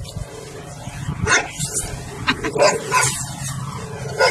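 A dog barking a few short times.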